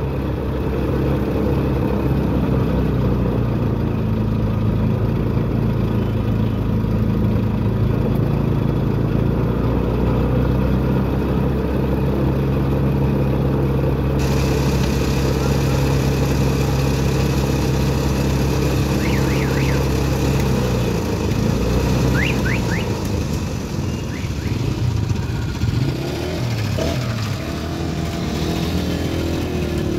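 Sugarcane juice crusher machine running with a steady mechanical hum while cane is fed through its rollers. About two-thirds through the hum becomes less even, and a few short high squeaks are heard.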